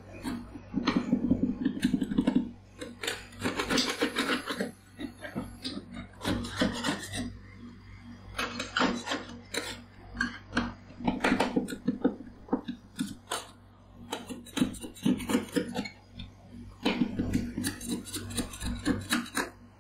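Metal spatulas chopping and scraping a freezing blueberry ice cream base on the steel plate of a rolled ice cream cold pan. The sound comes in repeated bursts of quick taps and rasping scrapes, with short pauses between them.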